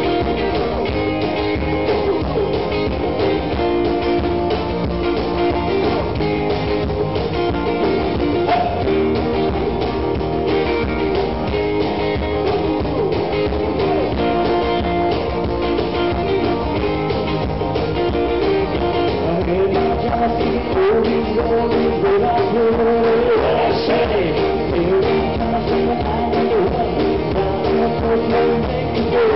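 Live acoustic rock band: guitars strummed and picked, with a lead guitar line and a man singing.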